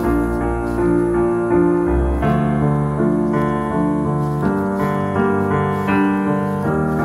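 Background piano music, single notes and chords held and changing steadily, with the deepest bass notes dropping away about two seconds in.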